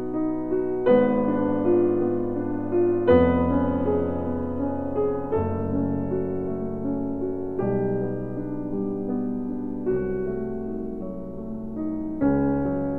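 Background piano music: slow, sustained chords, with a new chord struck about every two seconds.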